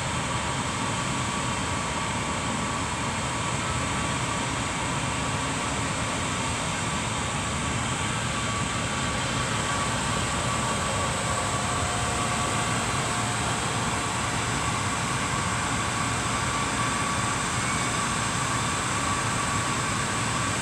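Steady outdoor hum and hiss with a faint high whine, holding one level throughout with no pass-by rise or fall.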